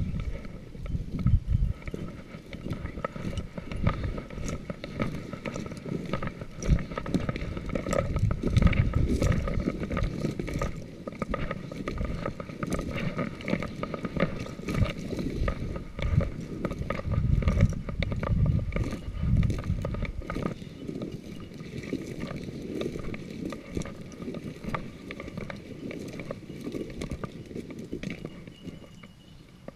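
Footsteps and rustling of a hunter walking through dry grass and brush, with irregular crunches and knocks from boots and brushing stems. The sound fades somewhat near the end.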